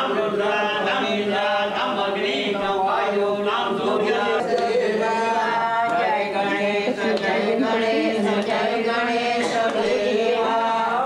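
A group of voices chanting a Hindu devotional hymn together, steady and continuous.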